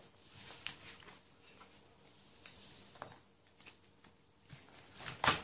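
Plastic binder sleeve pages of a trading-card binder being handled: faint rustles and small ticks, then a louder brief swish as a page is turned about five seconds in.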